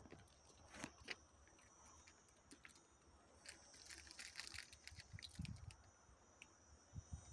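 Near silence, with a faint, steady, high insect buzz and scattered light crackles and soft thumps of footsteps on dry ground.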